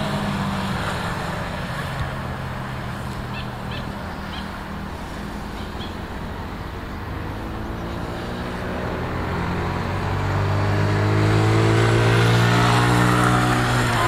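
Small dirt bike's engine running as it laps the track, its revs rising and falling through the gears and corners, growing louder near the end as it comes closer.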